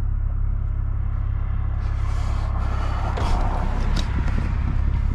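Lexus IS250's V6 engine and exhaust running steadily under way, a low rumble, with a rise in noise in the middle and a couple of sharp cracks from the pops-and-bangs ECU tune.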